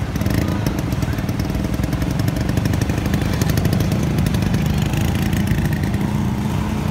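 Classic Vespa scooter's two-stroke single-cylinder engine running steadily at idle, with a rapid, even putter.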